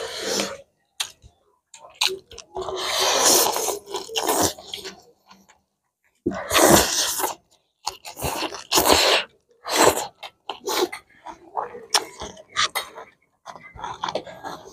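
People slurping spicy instant noodles and chewing: a series of loud, hissing slurps separated by short pauses, the longest lasting about three seconds.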